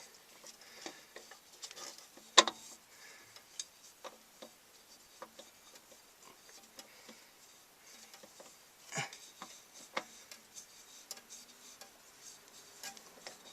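Scattered small clicks and scrapes of a spin-on oil filter being threaded onto its mount by hand, with a sharp click about two seconds in and a couple more near the end.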